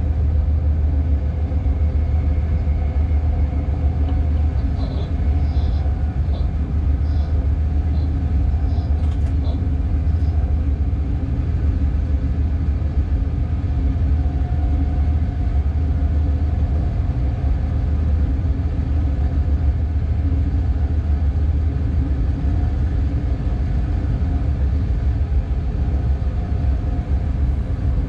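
Steady low rumble and hum in the cab of a Class 186 TRAXX electric locomotive under way. A few faint, short high-pitched blips come through between about five and ten seconds in.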